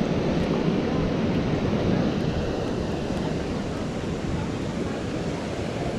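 Wind buffeting the microphone: a steady low rumbling rush with no pauses.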